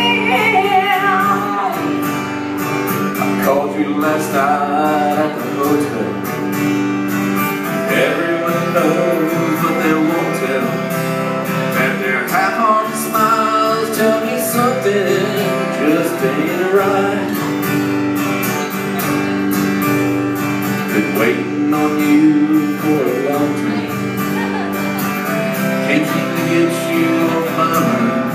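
Live acoustic band playing country rock: two acoustic guitars strummed and picked, with singing.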